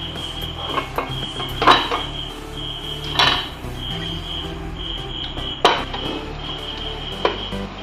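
Metal slotted spatula clinking against a kadai as spring rolls are turned in frying oil: a few sharp clinks spaced a second or two apart.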